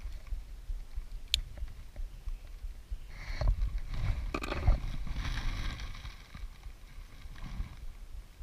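Handling noises as a freshly caught small bass and its lure are worked free aboard an inflatable boat: a sharp click early on, then a cluster of knocks and rustling from about three to six seconds in, over a low rumble.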